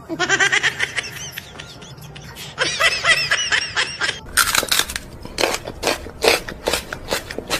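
A person laughing in high-pitched giggles, in two spells in the first four seconds. Then a series of short, sharp sounds follows, two or three a second.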